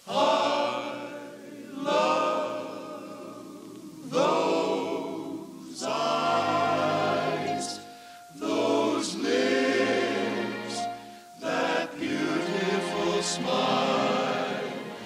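Film score music with a choir singing, in swelling phrases that start again roughly every two seconds.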